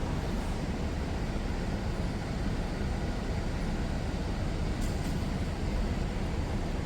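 Steady low rumble of airport terminal ambience, with a couple of faint clicks about five seconds in.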